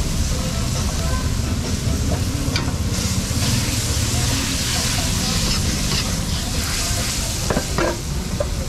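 Noodles sizzling and bubbling in a wok while a metal ladle stirs them, over a steady low rumble, with a few sharp clinks of the ladle against the wok near the end.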